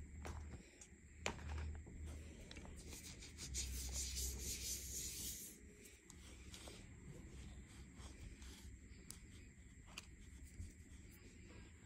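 Bare fingers crushing and rubbing dry, crumbly chunks of blue cornstarch mixed with glitter: a soft, gritty crunching and rustling that grows louder for a couple of seconds near the middle, with a few sharp crackles.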